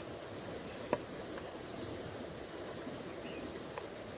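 A river flowing steadily over its bed, with one sharp click about a second in.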